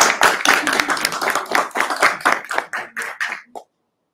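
Small group applauding, the claps thinning out and stopping about three and a half seconds in.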